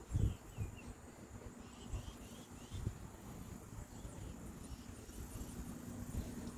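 Outdoor ambience: a small bird chirping in short, quickly repeated descending notes, over a low rumble, with a steady low hum that grows louder near the end.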